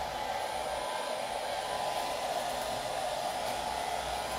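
Handheld hair dryer running steadily, blowing over freshly glued decoupage paper to dry it.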